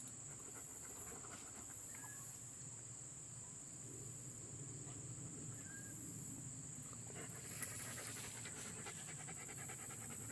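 German Shepherd panting softly and steadily.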